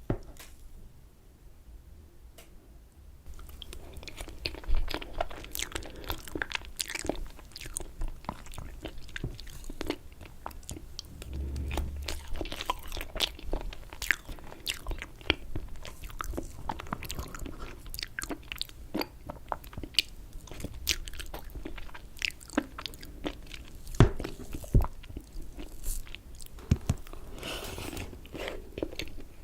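Close-miked eating of raspberry cheesecake: biting and chewing with dense moist mouth clicks, starting about three seconds in, with a few sharper clicks later on.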